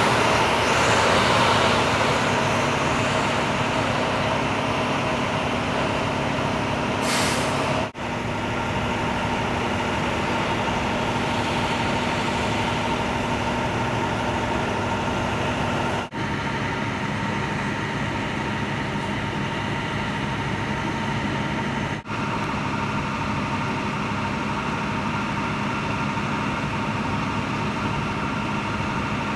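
Heavy trucks' engines idling steadily, with a short hiss about seven seconds in. The drone breaks off for an instant three times.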